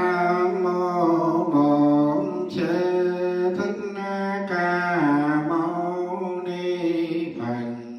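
A single voice chanting a Buddhist chant melodically in several drawn-out phrases, over a steady low hum. It fades away near the end.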